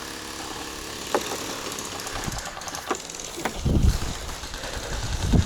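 A gel blaster's small electric gearbox motor whirring steadily while the gun fails to fire, with a few sharp clicks. From about three and a half seconds in, louder low rumbling handling noise takes over.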